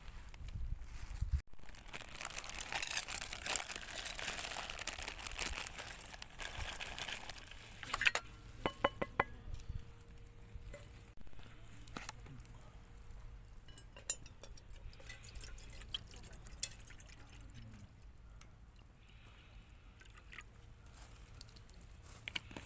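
Water being poured for about six seconds, then a quick run of light clinks around eight seconds in, and a few soft knocks after.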